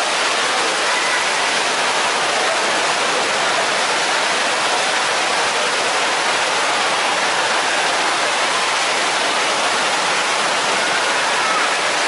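Rain Oculus whirlpool waterfall: a column of water pouring from the centre of an overhead bowl and splashing into the pool below, a steady rushing of falling water.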